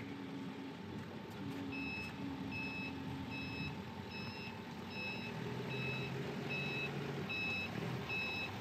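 Forklift reverse alarm beeping at an even pace, a little over once a second, starting about two seconds in, over the steady hum of the forklift's engine.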